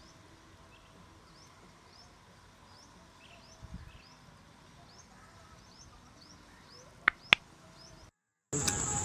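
Quiet outdoor ambience with a small bird repeating a short rising chirp about twice a second. Two sharp clicks close together just before seven seconds in, then the sound cuts out and a brief loud burst follows near the end.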